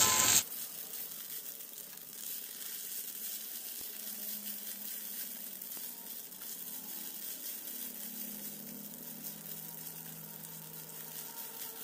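Basmati rice frying in ghee in a nonstick pan, sizzling softly while a wooden spatula stirs through the grains.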